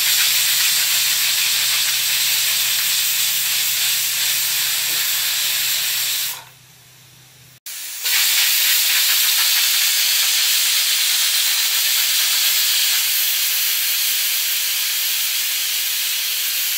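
Stovetop pressure cooker whistling twice: steam hissing loudly out past the weighted whistle valve for about six seconds, then after a brief break a second long hiss of about ten seconds. These are the whistles that count off its cooking time under pressure.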